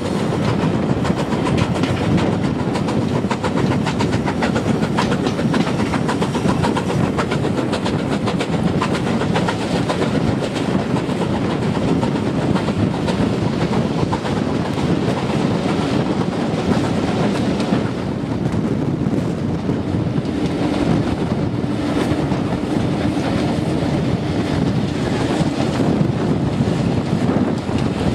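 Steam-hauled train heard from an open coach window: a steady rumble and rapid clatter of the coach wheels on the track, with the locomotive working at the head of the train. A steady low hum joins in about two-thirds of the way through.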